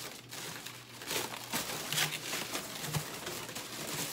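Brown paper packing wrap rustling and crinkling in short bursts as it is pulled off a box by hand.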